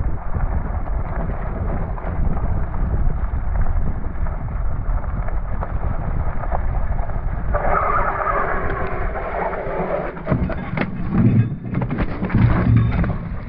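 Slowed-down sound of a gravel bike riding a dirt trail: deep, drawn-out wind and tyre rumble. Near the end comes a run of knocks and thuds as the bike crashes and the rider and handlebar camera hit the gravel.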